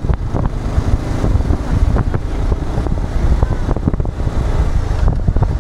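Wind rushing over the microphone on top of the steady rumble of a moving vehicle and road, with a few short knocks.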